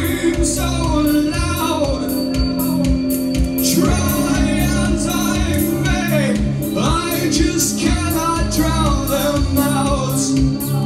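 Live band playing a dark, synth-driven rock song: held synthesizer tones and electric guitar over a steady beat, with sung vocals gliding up and down.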